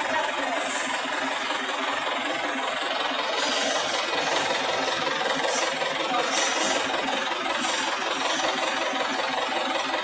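DFQ-200W pneumatic water-well drilling rig's engine running steadily while the rig is worked through its pipe-loading function.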